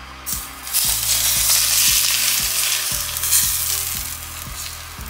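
Smoking-hot oil poured over shredded scallions on a whole steamed fish, sizzling and crackling loudly from about a second in and dying down toward the end. This is the finishing step of Cantonese steamed fish.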